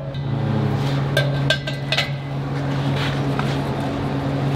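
A few sharp metallic clinks and clanks of steel pieces being handled and pulled into place for tack welding, mostly between one and two seconds in, over a steady low hum.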